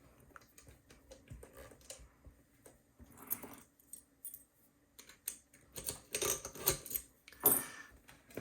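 Small metal clicks and clinks of disc padlocks and lock picks being handled, getting busier and louder near the end.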